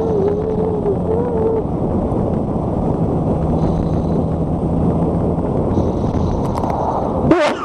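Motorcycle riding at road speed: steady wind rush over the helmet microphone with the engine's low, even drone underneath. It cuts off abruptly near the end after a brief sweeping sound.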